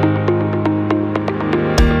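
Electronic outro music: sustained synthesizer chords over a quick, steady ticking beat, with a heavy bass drum beat coming in near the end.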